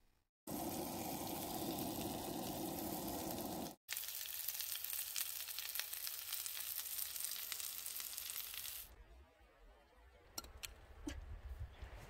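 Pierogies sizzling as they pan-fry in a frying pan on a camp stove, a steady hiss with a brief break about four seconds in. The sizzle stops about nine seconds in, and a few faint clicks follow near the end.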